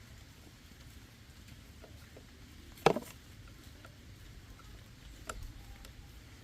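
A single sharp knock about three seconds in, then a lighter click a little after five seconds, over faint steady background noise: the knock of a tool or part being handled during repair work.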